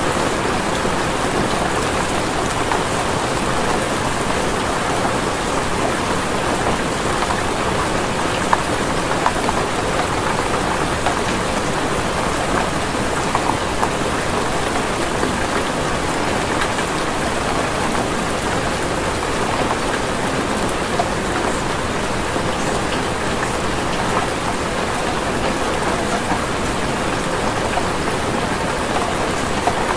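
Steady rain falling on a surface, a dense even patter with occasional louder drops.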